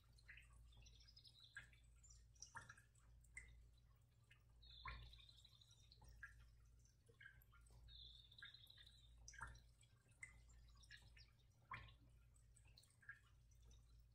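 Near silence: room tone with a steady low hum and scattered faint ticks.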